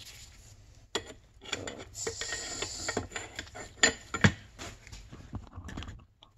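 Metal tool clinking and knocking against a snowmobile engine's flywheel, with rustling in between. The two loudest knocks come close together a little before the end.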